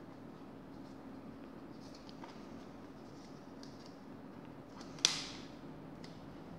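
Faint rustling and small ticks as fingers handle and fold a paper dust-removal sticker from a screen-protector kit, over a low steady hum. About five seconds in, a single sharp click.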